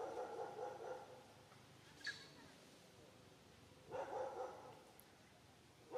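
Animal calls: three short bursts of barking or grunting about two seconds apart, with one brief high squeak about two seconds in.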